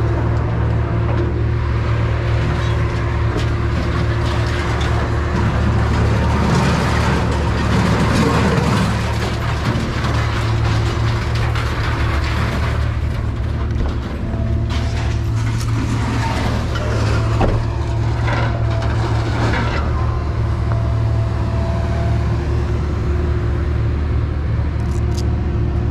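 Truck driving along: steady engine and road noise with a constant low rumble.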